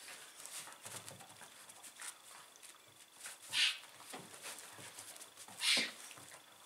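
Two dogs play-wrestling on a carpet: steady scuffling and pawing, with two short, sharp breathy sounds from the dogs, one in the middle and one near the end.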